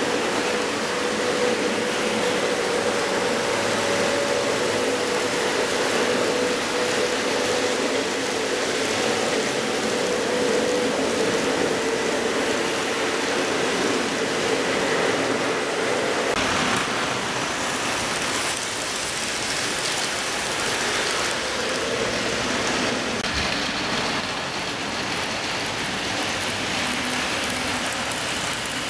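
Model trains running around a layout: a steady rattle of small wheels on the rails with a motor hum. The hum stops about halfway through and the rattle carries on a little quieter.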